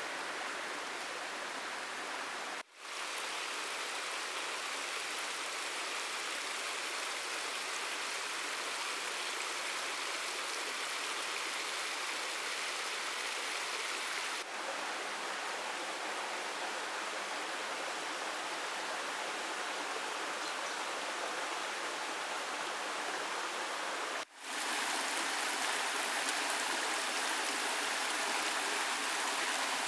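Shallow stream running over stones: a steady rush of flowing water. It cuts out for an instant twice, about three seconds in and near the end, and is a little louder after the second break.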